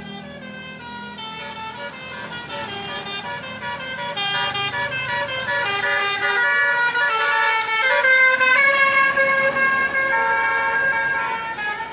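Bus's Basuri telolet multi-tone air horn, with roof-mounted trumpets, playing a long, unbroken melody of quick stepped notes. It grows louder from about two seconds in and stops suddenly at the end.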